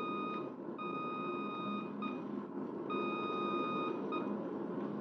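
Low-frequency radio range signal in a pilot's headset, dramatised: a steady beeping tone keyed in a repeating long-short pattern, dash-dot, the Morse N of an A-N range quadrant, about every two seconds. A steady low background noise runs under it.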